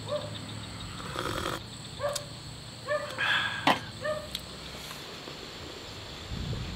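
A person eating and drinking: sips from a stainless steel mug and small mouth sounds, with a couple of sharp clinks of a spoon against a metal bowl.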